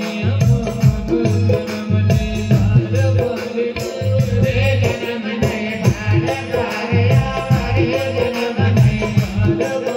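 Indian devotional folk music: steady sung or played melody over a regular drum beat, with shaken rattles and a tambourine keeping time.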